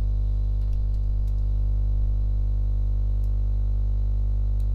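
Steady low electrical hum with a stack of evenly spaced overtones, and a few faint clicks scattered through it.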